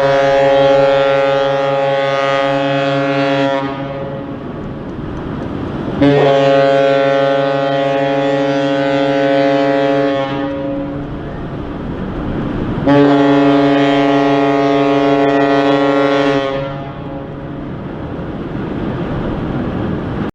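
A ship's horn, a ferry's, sounding three long blasts of about four seconds each, one steady deep tone each time, with the sound echoing away after every blast.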